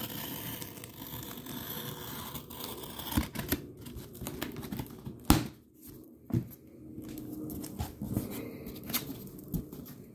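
A shipping box being opened by hand: tearing for the first few seconds, then rustling and scattered knocks as the box and its contents are handled, the loudest knock about five seconds in.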